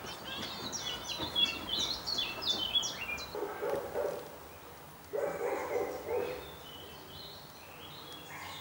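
Birdsong: a small bird's quick, high warbling phrase for the first three seconds, then two lower, pitched calls, one about three and a half seconds in and one about five to six seconds in.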